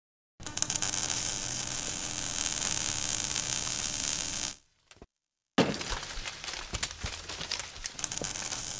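Logo-intro sound effects: a steady electric buzz and crackle over a low hum for about four seconds, then after a brief silence a sudden hit followed by scattered crackling and clinking like breaking glass.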